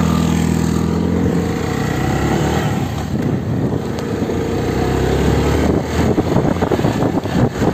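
Motorcycle engine running while riding along. Wind buffets the microphone from about six seconds in.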